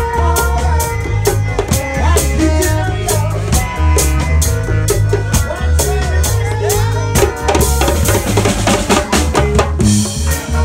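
Live reggae band playing: a drum kit keeps a steady beat under a heavy bass guitar line, with other instruments on top. Cymbal washes come in about eight seconds in and again near the end.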